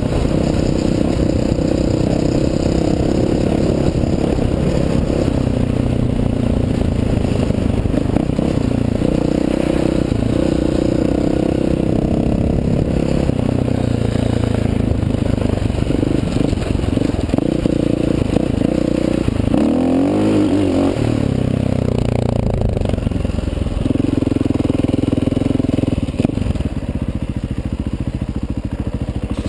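Dirt bike engine running under throttle on a gravel trail, heard from a helmet camera, its pitch shifting with throttle and gear changes. About two-thirds through it revs up and back down, and near the end it eases off and gets quieter.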